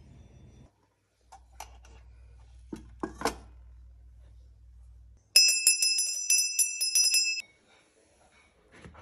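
Brass puja hand bell (ghanti) rung rapidly during a food offering, about five strokes a second for some two seconds, starting a little past halfway; its ringing is loud and bright. A few light clinks come before it.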